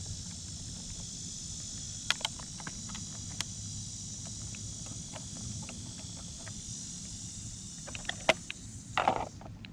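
Steady high-pitched chorus of insects such as crickets, with a few sharp clicks scattered through it and a short rustle near the end.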